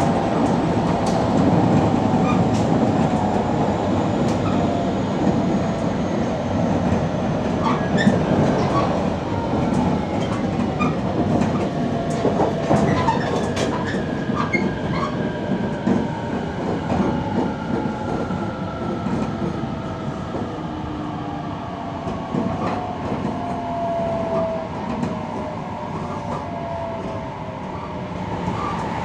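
JR Kyushu 815 series electric multiple unit running, heard from inside the car: the whine of its Hitachi IGBT-VVVF inverter and traction motors slides steadily down in pitch as the train slows, over the rumble of the wheels and scattered clicks from rail joints.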